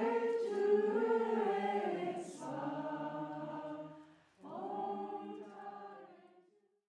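A group of voices singing together in long held notes; one phrase ends about four seconds in, and after a short gap a second phrase fades away.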